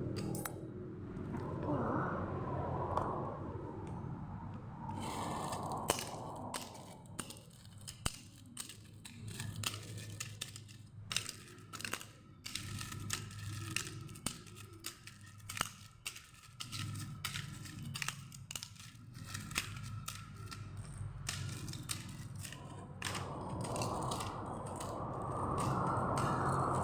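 Plastic packaging and toy track parts being handled: crinkling and rustling, with many scattered sharp clicks and snaps through the middle.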